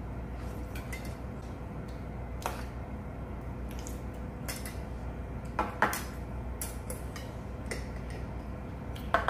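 Spoons and chopsticks clinking against metal and ceramic bowls while eating, a few sharp clinks, the loudest about six seconds in and again at the end, over a steady low hum.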